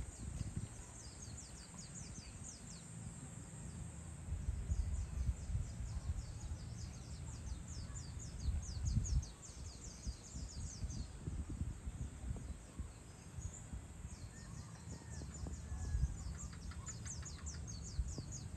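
Evening outdoor ambience: small birds give trains of quick, very high-pitched chirps, several a second, over a steady low rumble.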